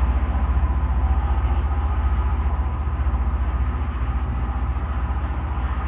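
Loram rail grinder train running on the track: a steady, rapid low throb from its engines with a hum above it, easing off slightly.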